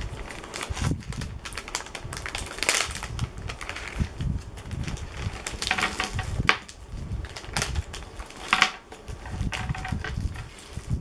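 Plastic candy wrappers crinkling and rustling as a snack bag is opened and small wrapped candies are handled, with irregular crackles and a few louder crinkles.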